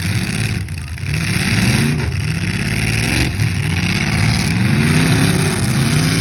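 Demolition derby car engines revving hard, their pitch rising and falling again and again as the cars reverse and charge.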